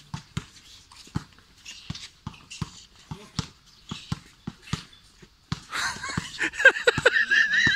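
A basketball being dribbled on a hard court, bouncing steadily about two to three times a second. About five and a half seconds in, a man lets out a loud, drawn-out shout that runs to the end.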